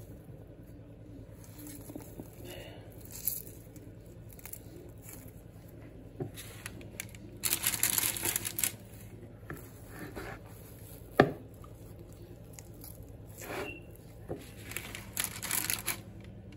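Baking paper crinkling and rustling in bursts as hands set shaped brioche dough balls down on it, with one sharp knock about eleven seconds in.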